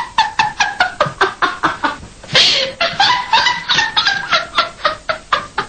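A woman laughing heartily in a quick, steady run of ha-ha pulses, with a loud gasping breath about two and a half seconds in before the laughter carries on.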